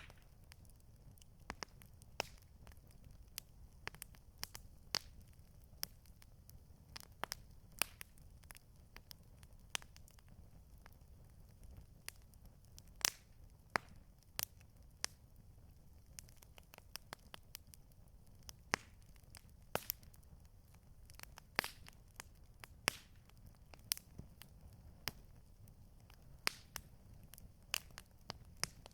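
Campfire crackling: irregular sharp pops and snaps of burning wood, sometimes several close together, over a faint low rumble.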